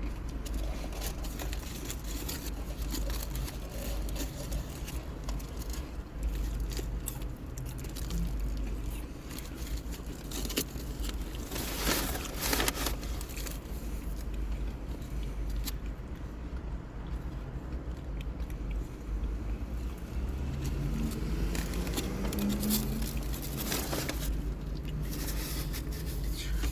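Steady low rumble of a car's interior, with scattered rustles, clicks and scrapes from food and wrappers being handled. There is a louder crinkling stretch about halfway through.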